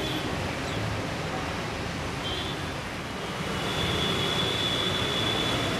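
Steady rushing noise of traffic and floodwater on a waterlogged road. A thin, high, steady whine joins about halfway through and the whole gets slightly louder.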